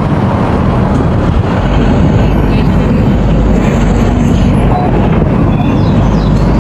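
Excavator's diesel engine running loudly, its low rumble growing heavier about a second and a half in.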